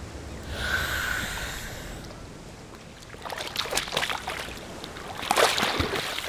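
Water sounds: a soft rushing swell, then from about halfway a run of splashes and sloshing.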